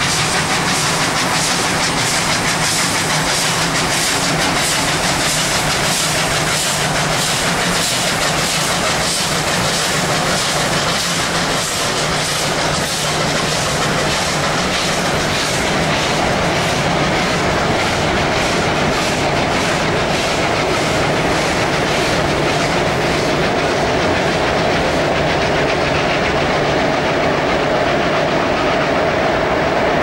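Two R class 4-6-4 Hudson steam locomotives working hard, their exhaust beats chuffing in quick, even succession, followed by the steady rumble and clickety-clack of a long train of carriages rolling over an elevated concrete viaduct. The exhaust beats fade through the second half, and a steady tone comes up near the end.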